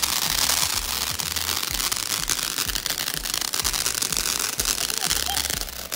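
Ground fountain firework spraying sparks, giving a steady hissing crackle made up of many fine pops.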